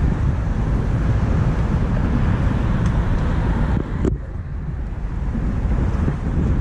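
Steady rumble of traffic on the highway bridge overhead, mixed with wind on the microphone, easing a little about four seconds in.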